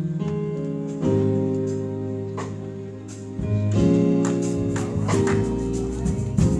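Church keyboard playing held gospel chords that change every second or so, with sharp percussion hits coming in from about halfway through.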